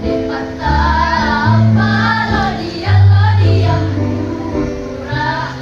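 A girls' school choir singing a phrased melody with wavering, vibrato-like notes over an accompaniment of held bass notes.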